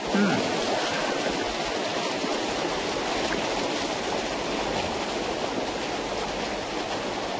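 Water pouring and splashing down over rocks from a spring or waterfall: a steady rush that cuts in abruptly at the start.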